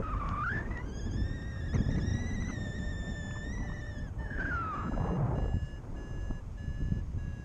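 Paragliding variometer: short steady beeps, the vario's climb tone. About a second in they give way to a continuous tone that rises in pitch, holds for about three seconds and glides back down, after which the beeps resume. Wind rumbles on the microphone underneath.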